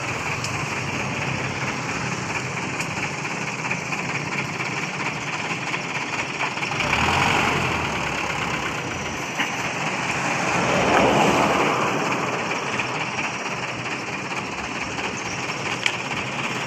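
Truck engine idling steadily, with two louder swells of noise that rise and fade, about seven and eleven seconds in.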